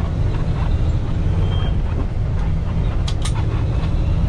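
Kenworth T680 semi truck's diesel engine running steadily while driving, heard from inside the cab. Two short sharp clicks come about three seconds in.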